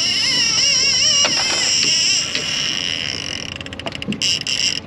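Fishing reel's drag screaming as a hooked fish pulls line off, a high whine that wavers in pitch at first, then holds and starts to stutter in rapid short bursts near the end.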